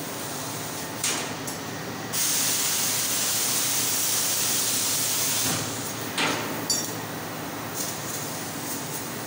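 CNC laser cutting machine cutting a steel sheet: steady machine hum, with a loud hiss of gas from the cutting head from about two seconds in to about five and a half seconds, and a few short clicks.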